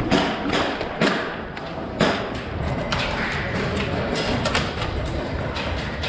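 Irregular thumps and knocks, such as footsteps and gear knocking as a player moves. The sharpest come about a second apart in the first two seconds, with lighter taps after.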